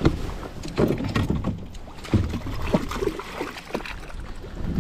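Water splashing and sloshing as a hooked pike is netted at the side of a kayak, with several irregular knocks and clunks.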